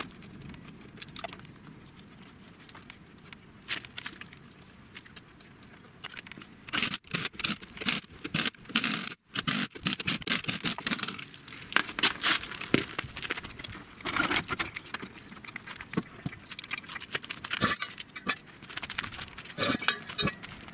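Steel lug nuts clinking as they are run onto a truck wheel's studs, with a cordless impact wrench fired in short bursts to tighten them about a third of the way in. A brief high whine comes near the middle, and metallic clatter runs on to the end.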